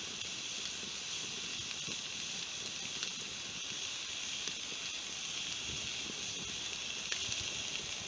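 Steak sizzling over a campfire: a steady hiss with a few faint crackles and pops.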